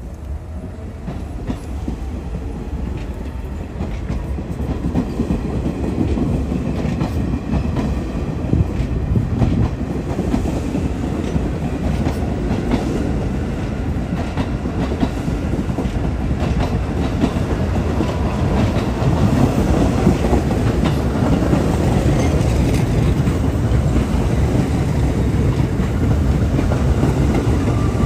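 New York City subway trains approaching on two tracks and passing close by, the nearer one a B train of R68 cars. The wheels rumble and clatter steadily over the rail joints, growing louder through the whole stretch, with a faint steel whine near the end.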